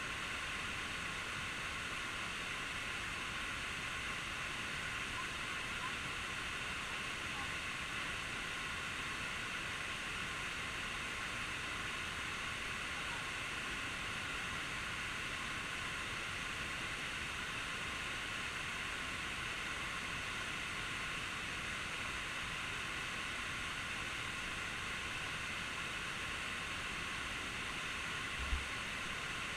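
Waterfall: a steady rush of falling water, with one brief low thump about a second before the end.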